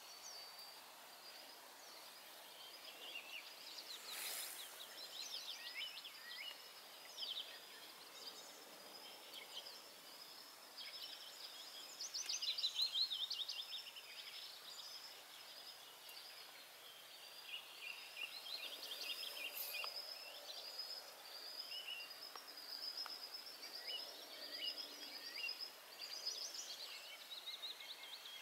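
Small songbirds chirping and trilling almost without pause, several calling at once, over a steady outdoor hiss, with a denser burst of trills about twelve seconds in. Two brief sharp clicks cut through, about four seconds in and again later.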